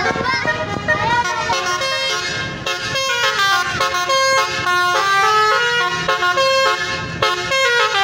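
Multi-tone telolet horn on a bus with an Adiputro Jetbus 5 body, playing a melody of held notes that change pitch in steps, over the low rumble of the bus engine.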